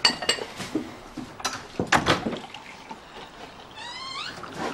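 A few sharp china clinks and knocks of cups and spoon, then tea poured from a china teapot into a cup near the end, the pouring sound rising in pitch as the cup fills.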